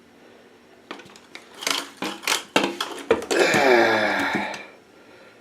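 Plastic clicking from the ratcheting height adjustment of a new toilet fill valve being pulled out, a string of sharp clicks. It is followed by a drawn-out pitched sound lasting about a second and a half that falls slightly in pitch.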